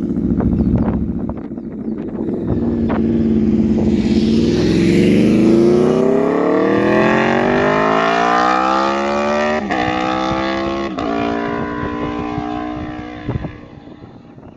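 2017 Aprilia RSV4 RR's V4 engine through an SC-Project GP70-R exhaust, accelerating hard with its pitch climbing steadily, then two quick upshifts that each drop the pitch, before fading away. A single sharp crack sounds near the end.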